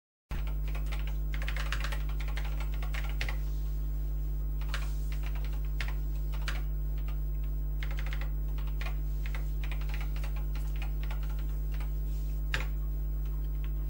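Typing on the keyboard of an 8-bit Acorn computer: irregular runs of key clicks as a command is typed, with one sharper keystroke near the end. A steady low mains hum runs underneath.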